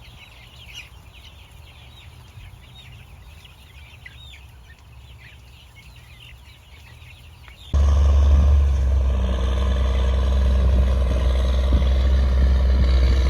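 Faint high chirping for the first several seconds. About eight seconds in it gives way suddenly to a vehicle engine running steadily with a loud low hum.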